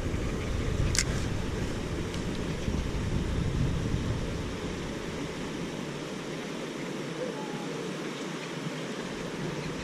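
Wind rushing over the microphone, with a heavy low rumble that eases after about four seconds. A single sharp click sounds about a second in.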